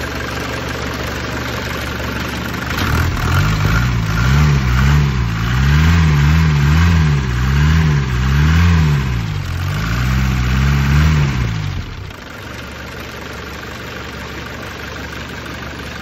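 Mercedes OM615/OM616 four-cylinder diesel idling, then revved up and down repeatedly, about once a second, before settling back to idle. It is running again after a no-start, its injection pump now timed at 18° before top dead centre to allow for 6 degrees of timing-chain slack.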